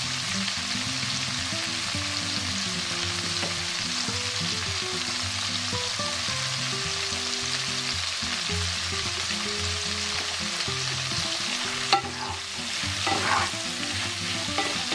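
Shell-on shrimp frying in hot oil in a nonstick pan, a steady sizzle. A sharp knock comes about twelve seconds in, then a wooden spatula stirs and scrapes the shrimp near the end.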